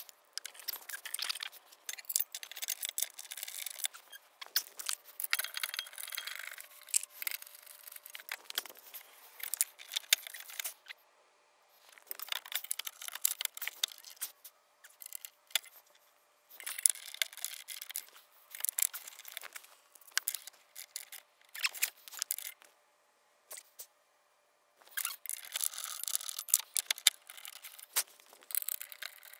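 Intermittent metallic clicking, scraping and clatter of hand tools and bolts against the underside of a car as a jacking rail is fitted, in bursts with short pauses between.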